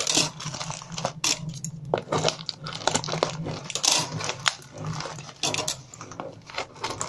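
A tape-wrapped parcel being handled and opened: the brown packing tape and plastic wrapping crinkle and tear in short crackly bursts, with sharp little clicks and taps against the hard countertop.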